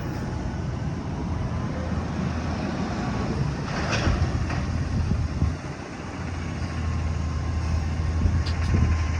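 Garbage truck engine running with a steady low hum, and a short burst of noise about four seconds in.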